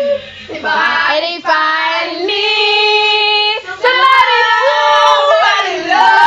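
A girl singing loudly with no instruments behind her, holding long notes and sliding between pitches.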